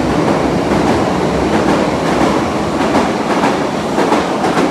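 Berlin U-Bahn train departing an underground station, its cars rolling past with a steady rumble of wheels on rail and irregular clacks as the wheels cross rail joints.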